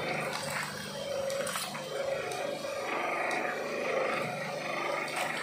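Twin-shaft shredder, driven by a 5000-watt electric motor through a WPA 120 gearbox, running with a steady low hum while its cutter discs tear and crunch plastic shampoo and lotion sachets, with scattered crackles.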